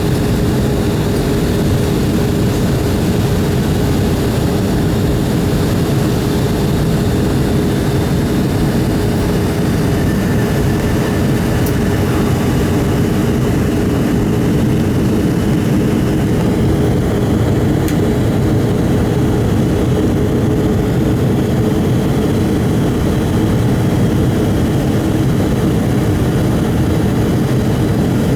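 Steady, loud drone of a Boeing 757 in flight: engine and airflow noise with a constant hum, unchanging throughout.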